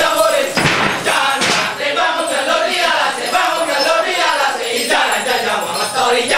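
A Balinese Kecak chorus of many voices chanting a continuous sung chant.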